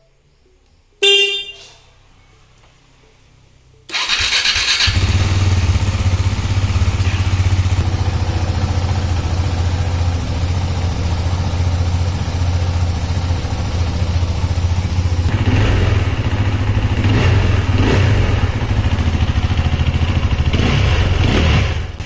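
KTM Duke 390's single-cylinder engine starting from cold after a month standing idle, catching at once and settling into a steady idle, with a few brief rises in revs near the end. It is preceded by a short beep of the bike's horn about a second in.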